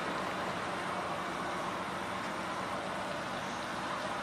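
Steady fairground din: an even rushing noise with no single sound standing out.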